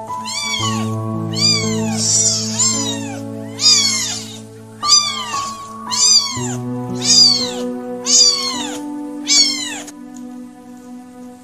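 Very young kittens, about two weeks old, mewing: a string of high-pitched mews that rise and fall, roughly one a second, stopping about ten seconds in.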